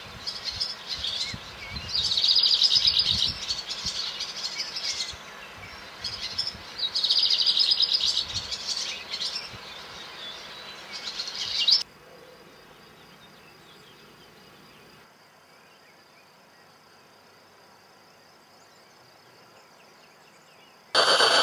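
Birdsong: repeated high chirps with two loud rapid trills, cut off abruptly after about twelve seconds, leaving a faint hiss. A sudden loud rushing noise comes in just before the end.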